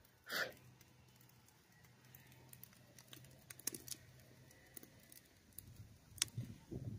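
Faint scattered ticking clicks, with a short squeak-like sound about a third of a second in, a sharper click a little after six seconds, and low rustling near the end.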